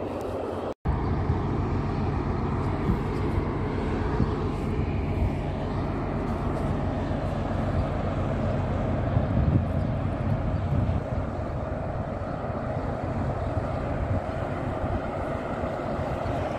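A steady low rumble, with a brief dropout to silence a little under a second in.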